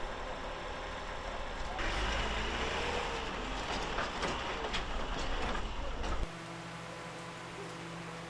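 Low engine rumble of a vehicle with a noisy background. It grows louder and hissier about two seconds in, then changes abruptly about six seconds in to a quieter, steady hum.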